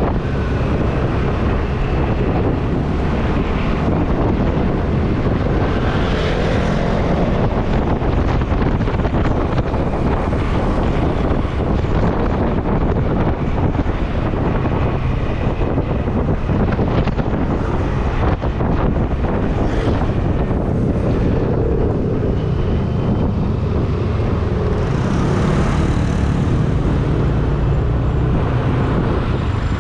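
Wind rushing over the microphone of a moving motorcycle, with engine and road-traffic noise underneath; steady and loud.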